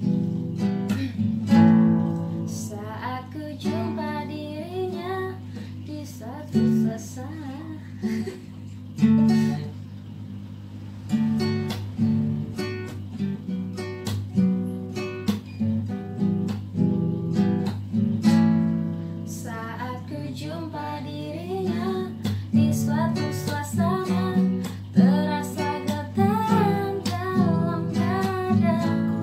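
Acoustic guitar strummed in steady chords, accompanying a voice singing a slow song; the singing drops out for a few seconds at a time.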